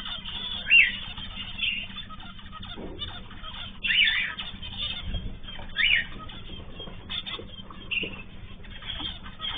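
Ornamental cage birds (cockatiels, zebra finches and canaries) calling: a few loud, sweeping chirps over steady background chatter.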